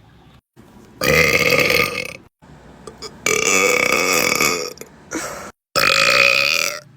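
Three long, loud belches from young women, one after another with short silent breaks between, each drawn out for a second or more.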